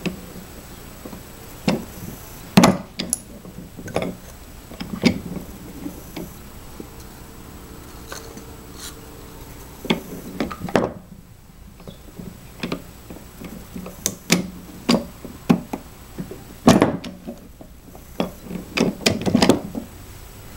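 Irregular metal clicks and knocks from a homemade lever press for reloading shotgun shells as its parts and a shell are fitted and the lever is worked, the loudest knocks about two and a half seconds in and again near seventeen seconds.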